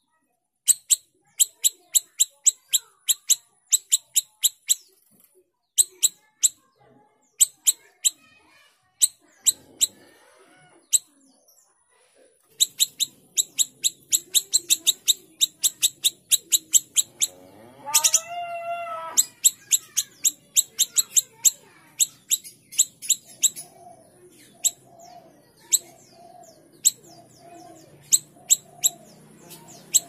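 Siri-siri kecil songbird chattering loudly: fast runs of short, sharp, high chirps, several a second, broken by short pauses. A lower, drawn-out call lasting about a second comes about 18 seconds in, and faint lower sounds wander in the background through the second half.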